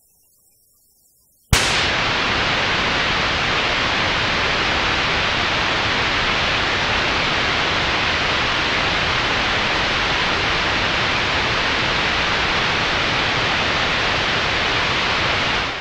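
FM radio receiver on a station's frequency: about a second and a half of dead air, then a steady hiss of static cuts in abruptly as the station's transmitter goes off the air, leaving the receiver on an empty channel.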